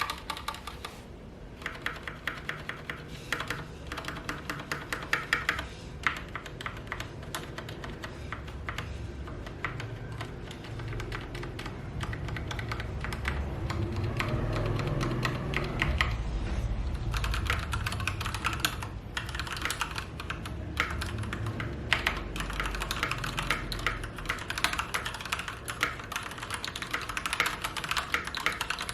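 Typing on an Akko 3087 mechanical keyboard fitted with Gateron Pink linear switches: a fast, continuous run of key clacks with a few short pauses.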